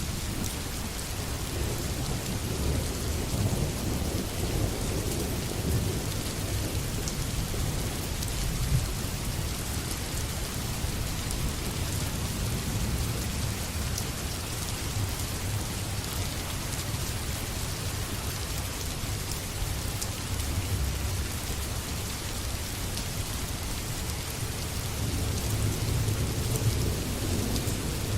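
Steady rain falling, with low rolling thunder that swells a few seconds in and again near the end.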